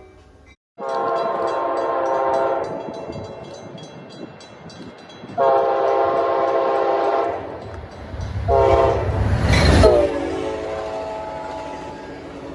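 Locomotive air horn sounding a chord in the grade-crossing pattern: two long blasts, a short one, then a final long one. During the last blast the train passes close with a surge of rumble, and the horn's pitch drops as it goes by.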